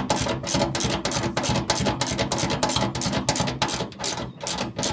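Ratchet wrench being cranked, clicking rapidly and evenly at about six strokes a second, as it tightens the fixings of a petrol pump's mounting flange onto the fuel tank.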